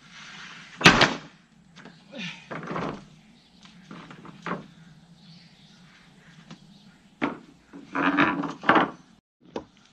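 Wooden deck boards knocking and clattering as they are dropped and laid across a timber joist frame. The loudest clack comes about a second in, with scattered knocks after it and a cluster near the end.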